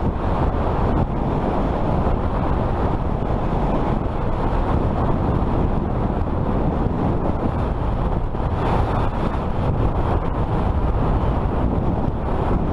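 Steady wind rush on the microphone with the rolling noise of a fat-tire electric bike being ridden.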